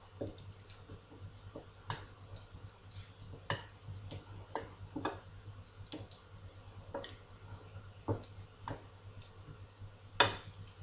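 Scattered light clicks and taps, irregularly spaced about one a second, with one sharper click near the end, over a steady low hum.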